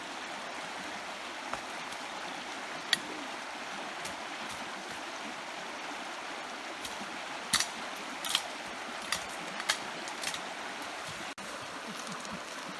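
Steady rushing of flowing stream water, with a few short, sharp splashes or knocks, most of them past the middle.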